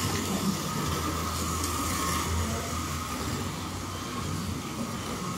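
Scalextric slot cars racing on a multi-lane track: a steady high whine from their small electric motors over a low hum, with one car passing close at the start.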